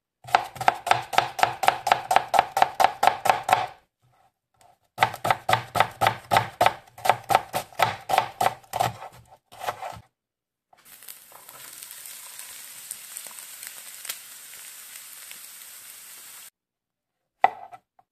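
Kitchen knife chopping onion on a plastic cutting board: two runs of quick, even strokes at about five a second. Then a steady hiss for about six seconds, and a single knife knock near the end.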